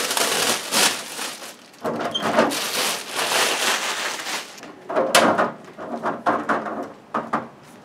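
Rustling and scraping as a flexible sink grid mat and plastic wrapping are handled over a stainless-steel sink basin. About five seconds in there is a sharp click, then several short knocks and rubs as the mat is pressed down onto the sink floor.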